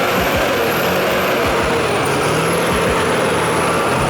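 Heavy vehicle's diesel engine running steadily, with a thin high whine above it that wavers up and down in pitch.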